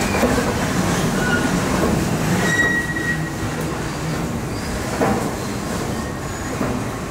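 Metro train running with a steady rumble and brief high wheel squeals, the clearest about two and a half seconds in and lasting under a second.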